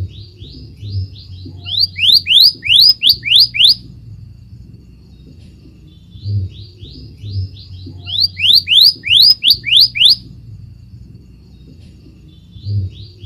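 Scarlet minivet song: a run of quick short notes building into a series of loud, clear whistles that sweep upward, the same phrase sung twice about six seconds apart, with a third beginning near the end.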